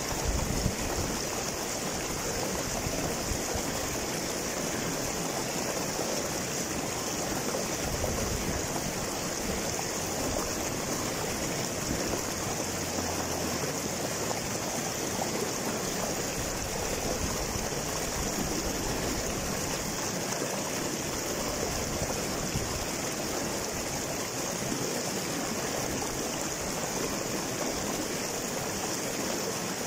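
Shallow rocky stream running over boulders in a small cascade: a steady rush and splash of flowing water.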